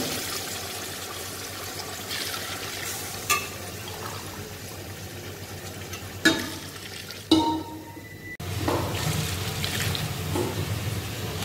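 Water being poured into a large metal pot of hot fried mutton masala, sizzling and splashing, with a few sharp metal clinks against the pot. The splashing gets suddenly louder about three-quarters of the way in.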